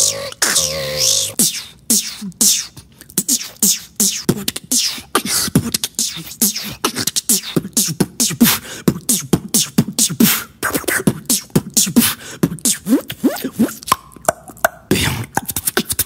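Beatboxer performing fast mouth percussion into a close microphone: a dense run of clicks and pops mixed with short pitched vocal sweeps.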